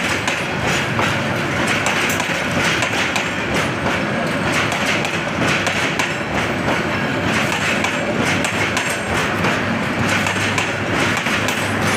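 Passenger coaches of a Bangladesh Railway intercity train rolling past, their steel wheels clattering over the rail joints in a steady rush of noise.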